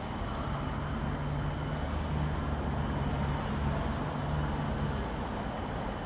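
Steady road traffic noise, with a heavy vehicle's low engine rumble swelling from about half a second in and fading near the end. Thin, steady high-pitched whines run underneath it.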